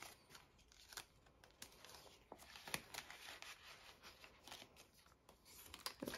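Faint rustling and soft scattered clicks of paper dollar bills being handled and slid into the clear plastic pockets of a binder.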